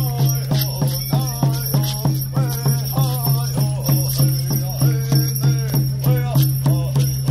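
Hoop dance song: a drum struck in a steady, even beat of about three strokes a second, with voices singing over it.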